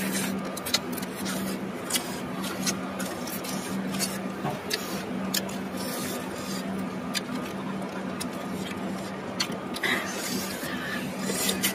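Close-up eating noises from a seafood meal: many short, sharp clicks and smacks from chewing, sucking at shells and chopsticks on the dish, over a steady low hum.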